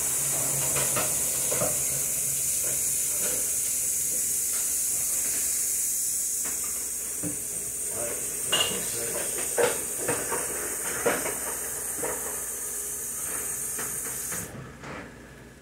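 Chops searing in a hot pan, a steady high sizzle, with a few light knocks of kitchenware about halfway through; the sizzle cuts off abruptly near the end.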